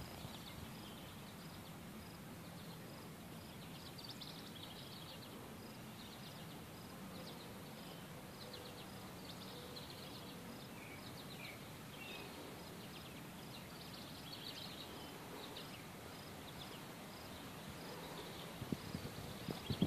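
Faint outdoor ambience: a steady low background hum with rapid, high-pitched chirps and trills repeating throughout, some in an even, regular pulse.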